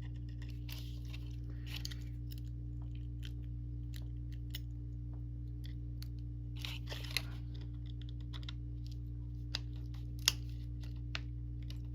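Small metal clicks and scrapes as the steel laminations of a warded padlock are worked and pried apart, with a few sharper ticks about seven and ten seconds in. A steady low hum runs underneath.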